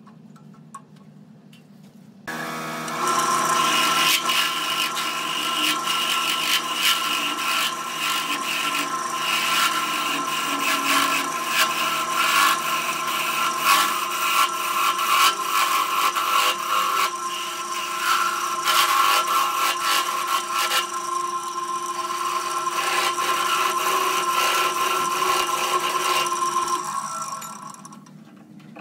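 Wood lathe running with a steady whine while a turning tool cuts the base of a spinning wooden bowl, a dense scraping of wood being cut away. The cutting starts about two seconds in and stops shortly before the end.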